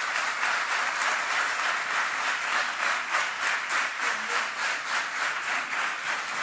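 A chamber audience applauding steadily, the clapping falling into a fairly regular beat toward the end.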